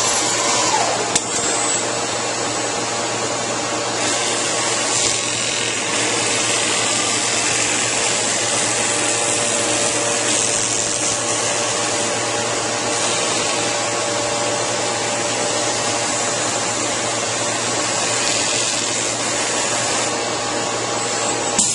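Busellato Jet Optima S2 CNC machining centre working the edge of a wooden panel: a steady machine whine of several held tones over a continuous hiss. The high hiss swells at times as the tool works along the edge.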